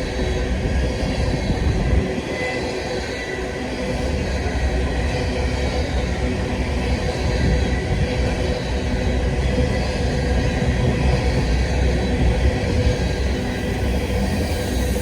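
Empty coal hopper cars of a freight train rolling past, a steady rumble of steel wheels on rail.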